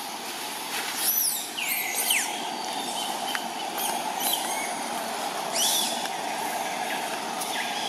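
Forest ambience: a steady drone with several short, high, falling calls, two close together between one and two seconds in, then single ones around four and six seconds in.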